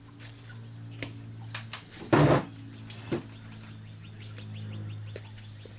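A just-plugged-in 1978-79 GE Sahara 14-pint dehumidifier hums steadily, with a few knocks and clunks over it. The loudest is a heavy thump about two seconds in.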